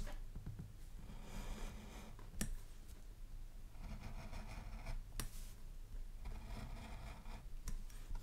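Faint handling sounds of small modelling tools at a workbench during decal work: light scraping and rustling, with sharp clicks about two and a half and five seconds in.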